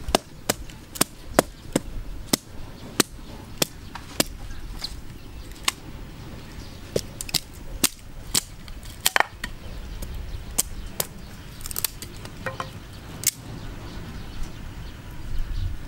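Hatchet blade chopping a stick of wood, sharp strikes about two a second, slowing after the middle and stopping a couple of seconds before the end.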